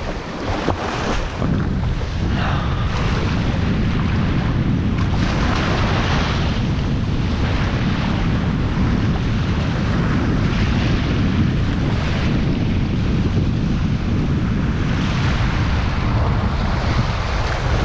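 Strong wind buffeting the microphone, steady and heavy in the lows, over small waves washing onto a sandy shore.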